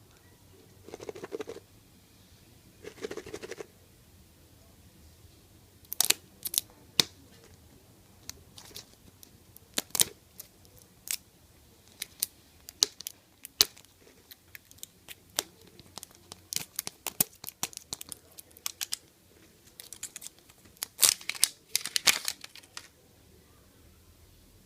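A surprise egg's wrapping being torn open and crinkled by hand: two short tearing rustles, then a long irregular run of sharp crackles and clicks.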